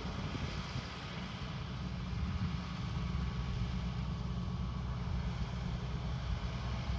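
Farm tractor engine running steadily as it pulls a rotary mower, a low even hum without changes in pitch.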